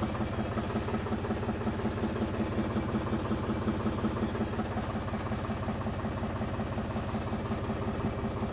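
Linde H 30 forklift engine idling steadily with an even, fast pulsing beat.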